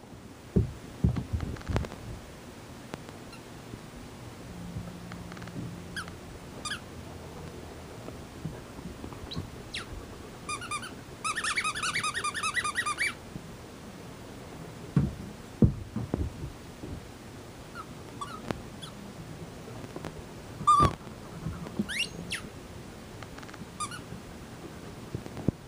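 Australian shepherd puppy whining in short high-pitched whimpers, with a rapid run of them about eleven seconds in and a rising whine near the end. A few soft thumps come in between.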